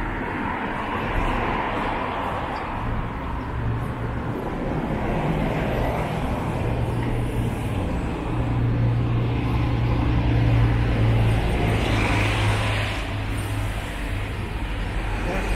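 City street traffic at a junction: engines running and tyres on the road, with a low engine hum that swells in the middle and fades near the end.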